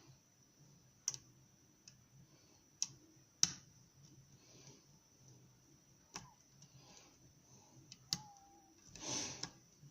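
Lock pick and tension wrench working the pins of a challenge lock: about five sharp metallic clicks spaced irregularly, with faint scraping between them and a short rustle near the end.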